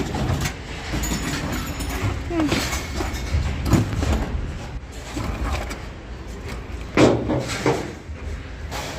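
A steady low rumble, with a few short bursts of voices over it.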